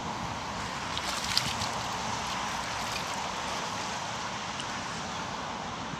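Steady outdoor noise of wind and moving water, with one small click about a second and a half in.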